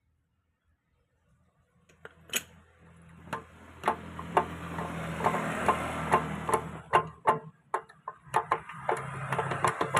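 Small Alkon water-pump engine starting about a second and a half in and running rough: a steady low hum with sharp, irregular knocks two or three times a second.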